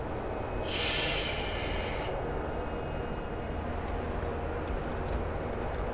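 Low, steady rumble from a commercial's soundtrack during a fight scene, with a brief hiss about a second in that lasts just over a second.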